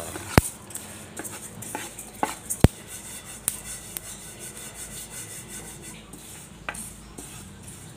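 Wooden spatula stirring sesame seeds as they dry-toast in a non-stick pan: a continuous rustling scrape of seeds over the pan, with several sharp clicks of the spatula knocking against the pan.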